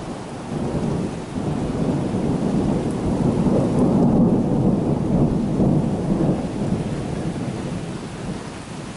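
Rolling thunder from a thunderstorm, a low rumble that builds to its loudest about halfway through and then fades away, with steady rain hissing underneath.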